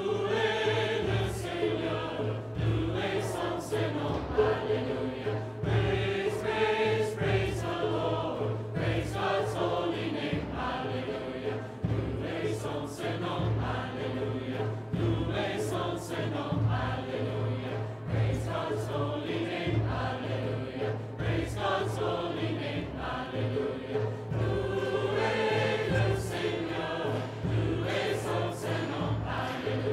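Choral music: a choir singing over a steady low drone, with regular percussive hits.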